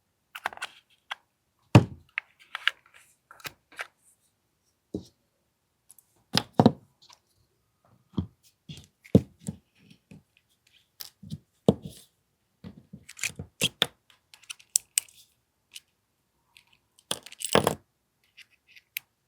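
Irregular clicks, clacks and knocks of small plastic and metal gun parts as an AAP-01 airsoft pistol is handled and taken apart to get at its firing pin. Louder knocks come about two seconds in, around six seconds in, and near the end.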